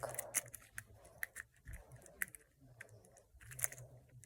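Plastic Rubik's cube being turned by hand: faint, irregular clicks and clacks as its layers snap round, several a second.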